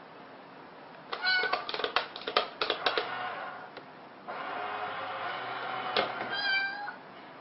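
A domestic cat meows once, briefly, near the end, after a quick run of clicks and taps about a second in.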